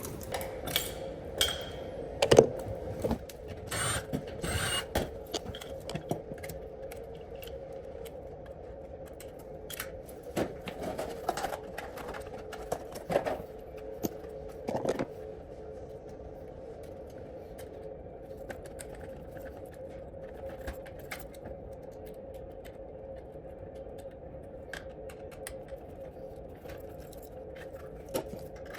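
Clicks, scrapes and small metallic rattles of hands working with hardware and tools while a fire alarm pull station is being swapped, busiest in the first half, over a steady hum.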